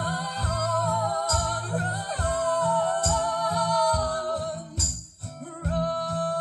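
Live band music in a wordless passage of a song: long held melody notes over a steady strummed and beaten rhythm with a high jingling shimmer. The music breaks off briefly about five seconds in, then comes back in.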